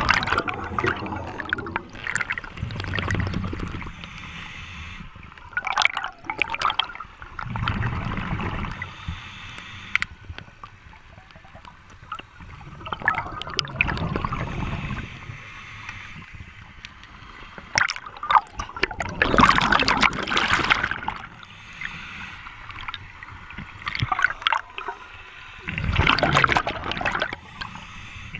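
Scuba diver breathing through a regulator underwater: loud bursts of exhaled bubbles gurgling past the camera about every five seconds, with quieter stretches between breaths.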